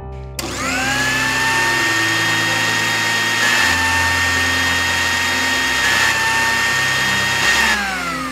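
Electric kitchen mixer grinder running: the motor starts suddenly and spins up to a steady high whine over a loud grinding rush, then winds down with a falling pitch near the end.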